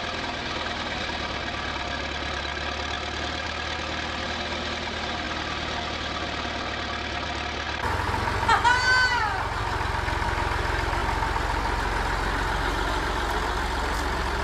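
An old tractor-dozer's engine running steadily. Partway through, it changes abruptly to a red farm tractor's engine running somewhat louder, with a short, high, rising-and-falling cry from a woman soon after the change.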